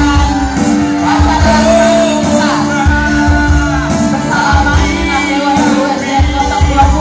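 A song with a voice singing over a steady bass beat.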